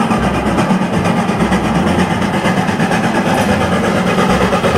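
Full-size steam locomotive dressed as Thomas the Tank Engine, working along the track with its coaches: a steady, loud running noise.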